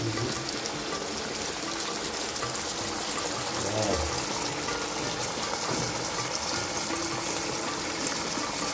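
Hilsa in mustard gravy simmering in a frying pan, the sauce bubbling and sizzling steadily.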